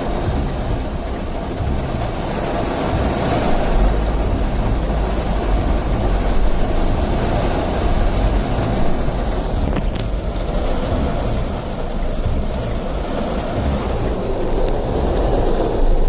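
Strong storm wind with heavy rain: a steady rushing noise with a deep rumble from the wind buffeting the microphone.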